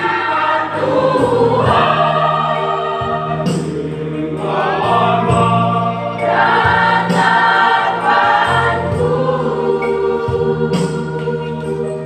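Church choir singing a gospel hymn, the voices moving in sung phrases of a few seconds each.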